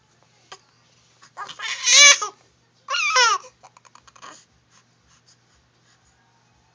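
Young baby giving two short fussing cries, about a second and a half and three seconds in, the second falling in pitch.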